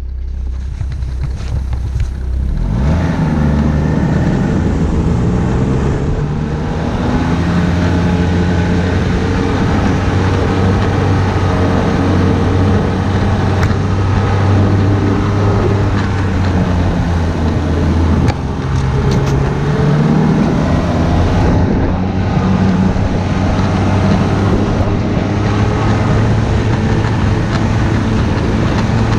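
Ski-Doo Blizzard snowmobile's Rotax 900 ACE three-cylinder four-stroke engine running under way, picking up speed about three seconds in, easing off briefly around eighteen seconds and pulling again.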